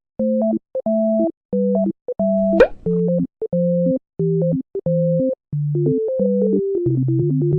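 Background music: a synthesizer melody of short, separate notes over a stepping bass line, with one brief sharp upward sweep about two and a half seconds in.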